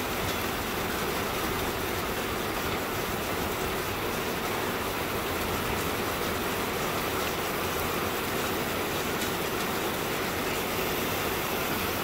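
Steady rain falling, an even hiss that holds at one level throughout.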